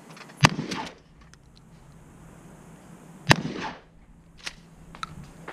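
Two shotgun shots about three seconds apart, each with a short echo after it, followed by a couple of faint clicks near the end.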